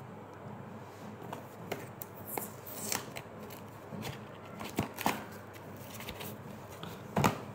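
Cardboard box of a skincare facial kit being opened and handled: scattered rustles, scrapes and light taps, with a louder clatter near the end.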